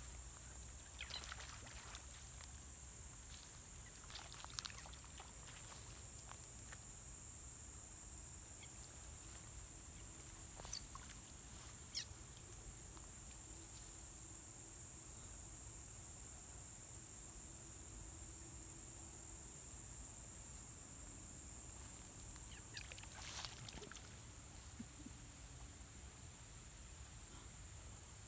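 Juvenile bullfrogs giving short alarm squeaks as they leap into the pond to escape. About five squeaks stand out, scattered through, over a steady high buzz of insects.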